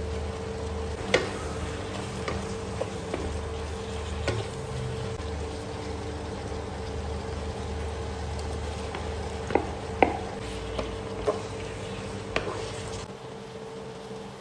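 Chicken, liver and onion sizzling in a nonstick frying pan, stirred with a wooden spatula that knocks sharply against the pan about eight times. A steady hum from the electric cooktop runs underneath.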